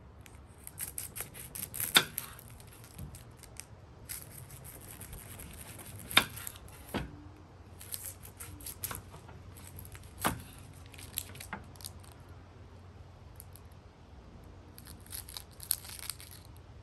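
Kitchen knife cutting an onion on a wooden cutting board, with crisp crackling of papery onion skin being peeled. Three sharp knocks of the blade against the board, about four seconds apart, stand out above the crackling.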